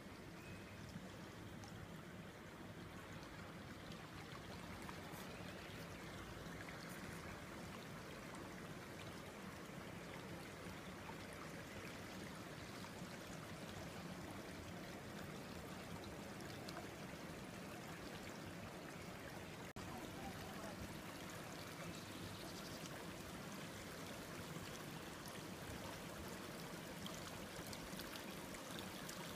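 Small mountain stream babbling and trickling over stones, a steady rush of running water, with a momentary dropout about two-thirds of the way through.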